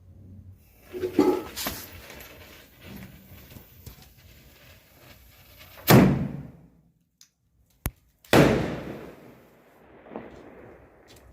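Firecrackers going off: a few smaller bangs early on, then two loud bangs about six and eight seconds in, each trailing off with an echo.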